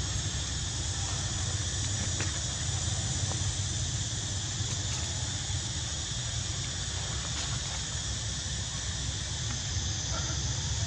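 Steady outdoor ambience: a constant high-pitched hiss over a low rumble, with no distinct events.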